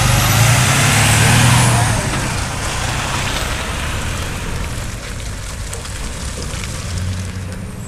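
Diesel semi-truck with a tall trailer driving past close by: engine and tyre noise loudest in the first two seconds, then fading steadily as it pulls away.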